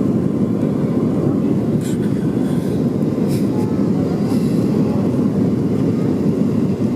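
Steady low rumble of a jet airliner's engines during its landing approach.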